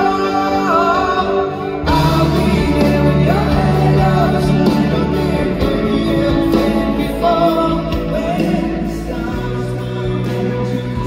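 Live pop-rock band playing in an arena, with sung vocals over keyboards and guitar. About two seconds in, the bass and full band come in and the music gets fuller and louder.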